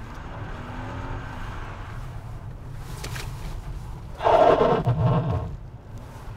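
Car engine heard from inside the cabin as the car drifts on a snow-covered track, running steadily under load. About four seconds in it revs hard, loud for about a second, then drops back.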